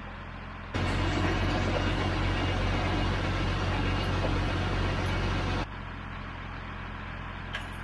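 Deutz 5206 tractor's air-cooled three-cylinder diesel engine running steadily, powering the skidding winch. About a second in it turns suddenly much louder and noisier for about five seconds, then drops back just as suddenly to a steady hum.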